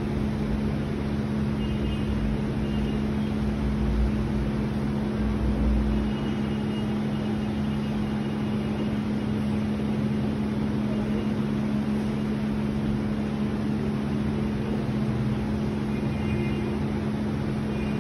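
Electric ceiling fans running, a steady electrical hum with room noise.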